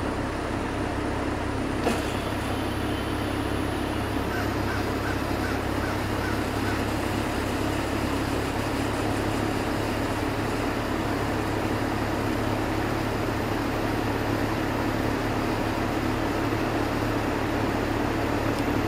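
Bosch IDS 2.1 5-ton inverter heat pump's outdoor unit running in cooling, its variable-speed compressor and condenser fan giving a steady low hum with a pulsing low end that the owner finds annoying at low compressor speeds. A single click about two seconds in.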